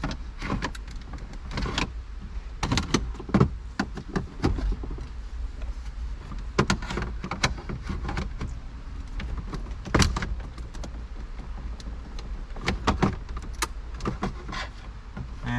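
Irregular clicks, snaps and knocks of plastic car interior trim being pried and handled, with sharper knocks about three and ten seconds in.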